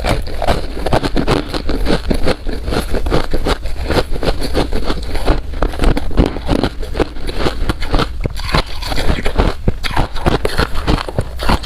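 Close-miked chewing of powdery freezer frost ice: a dense, unbroken run of rapid crackling crunches.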